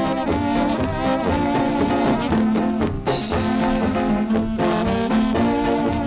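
A 1940s Czech-Texan dance orchestra's polka record, a brass-led band playing at a steady dance beat, with the dull, narrow top end of an old recording.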